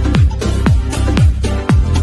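Electronic dance music with a steady kick drum about twice a second over a deep bass line.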